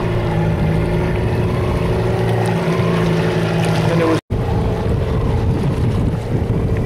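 Motorboat engine running steadily under way, a low even hum over the rush of wind on the microphone and water noise. It drops out for an instant about four seconds in, then comes back noisier and gustier.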